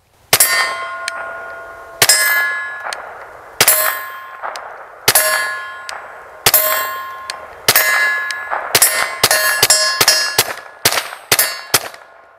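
Suppressed Taurus TX22 .22 LR pistol firing supersonic Winchester M22 rounds: six shots about a second and a half apart, then a faster string of about ten. Each shot is followed by the ringing clang of a struck steel target.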